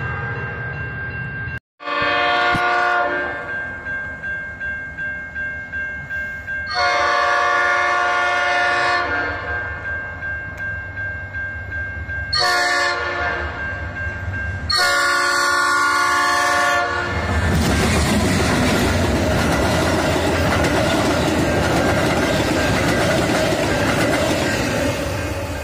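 Passenger train's air horn sounding the grade-crossing signal, long, long, short, long, as it approaches a crossing, with a grade-crossing bell pulsing between the blasts. The train then passes close by, its wheels rumbling on the rails.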